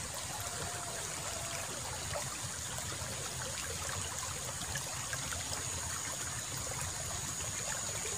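Water running steadily along a small irrigation ditch, a continuous trickling stream, with a thin, steady high-pitched tone over it.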